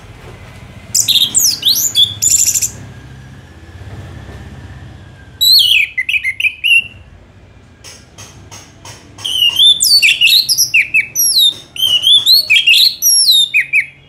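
Orange-headed thrush (anis merah) singing in three bursts of rapid, varied song, fast sliding whistles and chattering notes, with short pauses between; the last burst, near the end, is the longest.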